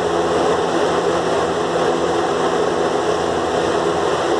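Steady mechanical drone: an even hiss with a low hum that does not change.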